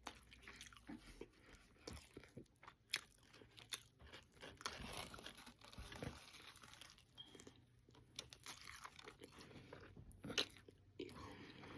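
A person faintly chewing a mouthful of hamburger, with soft crunches and wet mouth clicks scattered throughout.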